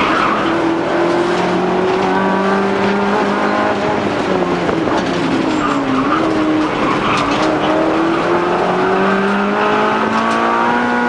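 Honda Civic N1 race car's four-cylinder engine running hard, heard from inside the cabin. Its pitch dips around six seconds, then climbs steadily through the rest as the car accelerates out of the corner.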